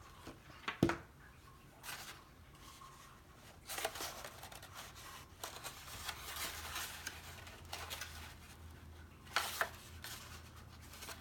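Paper petals being handled and pressed while they are glued on, in scattered bursts of rustling and crinkling, with a sharp tap about a second in.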